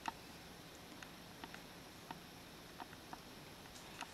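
Faint, moist clicks of lips and a lip balm tube as the balm is applied, scattered and irregular over quiet room tone.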